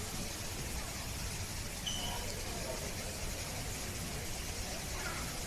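Steady background hum with faint, distant voices murmuring, and one brief high note about two seconds in.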